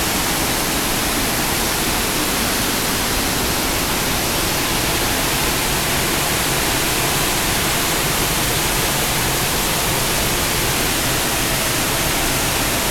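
Grand Falls of the Little Colorado River, a wide stepped waterfall of muddy floodwater, pouring over the rock ledges in a steady, unbroken rush of water noise.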